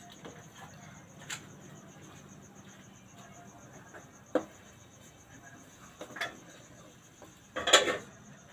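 Crickets chirping steadily in a high, evenly pulsing trill. Over it come a few sharp knocks and, near the end, a short loud clatter as firewood is shifted in a wood-fired stove.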